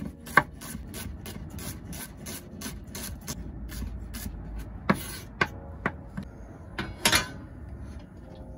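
Chef's knife dicing shallots on a wooden cutting board, a quick even run of taps about four a second. Then, after a short pause, a few louder, spaced-out knocks.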